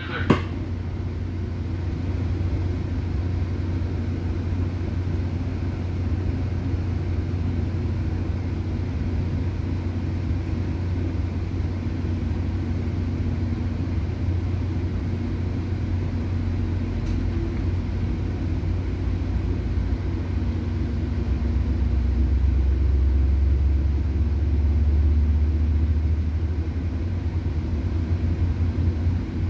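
Steady low rumble and hum of a passenger train as heard inside the coach while it rolls along, with a sharp click right at the start. The rumble swells for a few seconds past the twenty-second mark.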